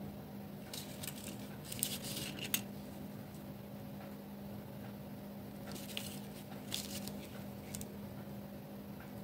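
Light clicks and rustles of clear plastic nail-tip swatch sticks being picked up and set down one by one by a gloved hand, in two short clusters, over a faint steady low hum.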